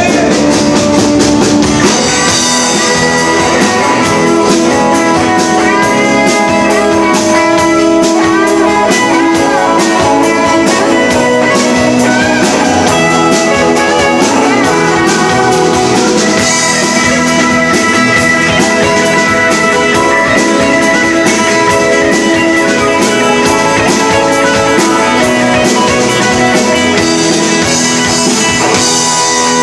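Live band playing, with an electric guitar leading over drums and cymbals and bending notes up and down; no singing.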